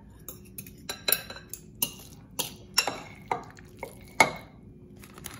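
Metal forks clinking against a glass mixing bowl as shredded pork is scooped out: a string of irregular clinks, the loudest about four seconds in.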